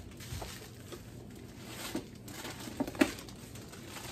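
Plastic produce bags rustling and crinkling as groceries are handled in a cardboard box, with a few short knocks; the sharpest, loudest rustle comes about three seconds in.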